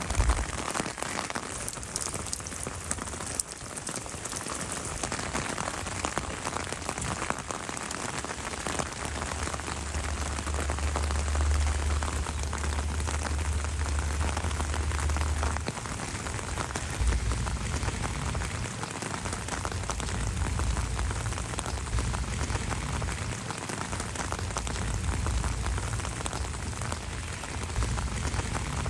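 Steady rain falling, an even patter of drops on surfaces. A low rumble comes and goes under it, from about nine seconds in and again from about seventeen seconds.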